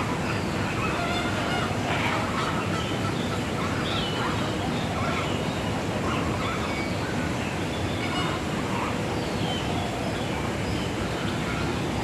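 A flock of flamingos calling, with many short, goose-like honks overlapping again and again over steady background noise.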